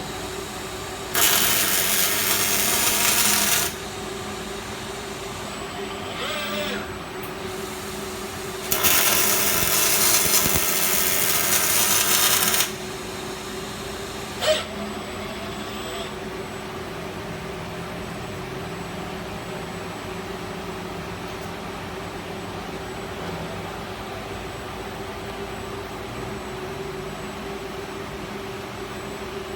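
Fronius CMT welding arc on steel tube, crackling in two runs of about two and a half and four seconds, with a brief short burst between them. A steady hum of welding-cell equipment runs underneath, and a single sharp click comes soon after the second run.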